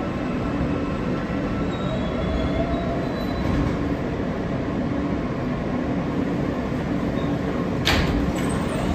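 New York City subway car rumbling as the train slows along the platform and comes to a stop, with a faint metallic squeal from the wheels. A short hiss comes near the end.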